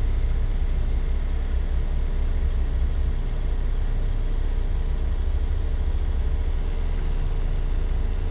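Ford 2.0 EcoBoost turbocharged four-cylinder idling steadily, warmed up, with an even low hum.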